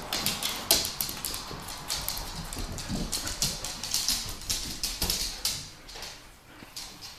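Two pit bulls playing rough over a rope toy, their claws clicking and scrabbling on a hard floor in quick, irregular taps that die down near the end.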